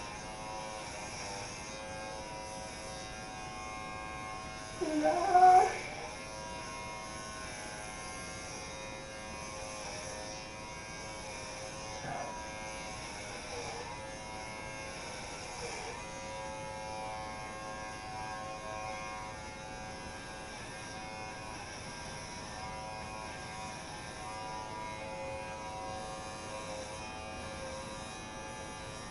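Electric hair clippers running with a steady buzz as they cut hair close to the scalp, their pitch dipping briefly a few times. About five seconds in, a short, much louder sound with a wavering pitch rises above the buzz.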